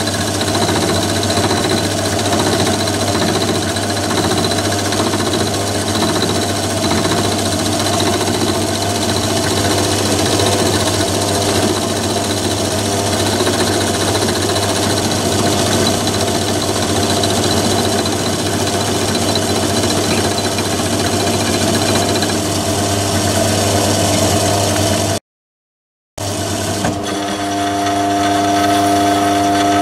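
Myford ML7 lathe running with an end mill in the chuck, milling a slot in a metal component: steady motor and gear hum with cutting noise. It cuts out for about a second near the end, then comes back as a steadier whine.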